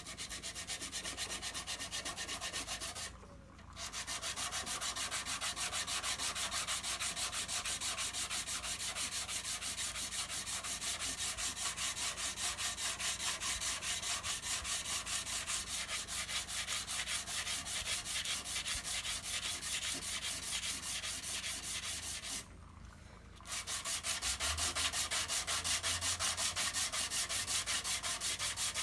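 Sandpaper dry sanding cured body filler in quick, regular back-and-forth strokes. The sanding stops briefly twice, about three seconds in and again near the end.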